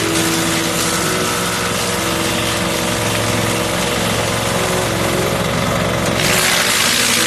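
Garden tree shredder running steadily, a motor hum under a dense rushing hiss that grows louder and brighter about six seconds in.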